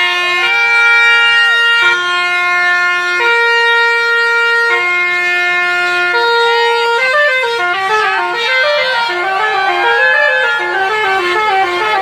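Basuri musical bus horn (telolet) playing: long held two-note chords in alternation, then from about seven seconds in a quick tune of short stepping notes.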